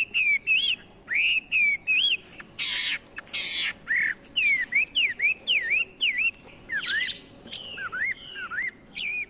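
Birds chirping: a steady run of short, clear whistled notes, each bending up and down in pitch, about two a second. Two brief harsh, hissing sounds stand out around three seconds in.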